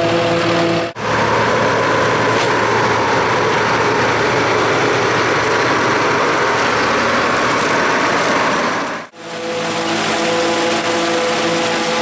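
Farm machinery running during corn chopping: the diesel engines of tractors and a Claas forage harvester. The sound drops out abruptly about a second in and again about nine seconds in. Between the dropouts it is a denser, rushing machine noise, and either side of them a steadier engine hum.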